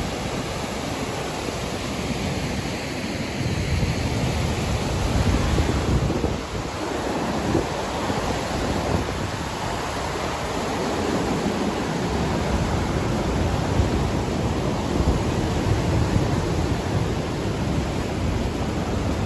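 River water rushing steadily through the open floodgates of a dam: a continuous roar of whitewater.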